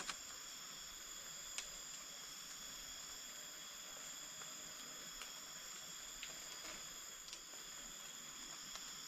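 Steady high-pitched drone of insects calling, with a few short sharp clicks, the loudest about one and a half seconds in.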